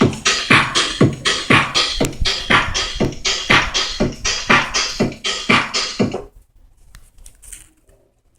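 Electronic keyboard playing a built-in electronic rhythm with a repeating scratch-like beat, about three strokes a second; it stops about six seconds in, leaving only faint small sounds.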